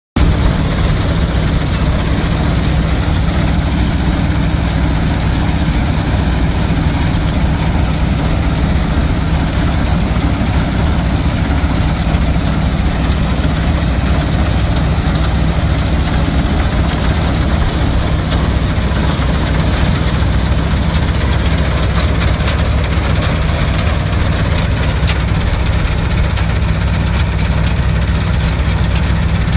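Combine harvester engine running steadily, a loud even drone with no change in speed. Light clicking is heard in the second half.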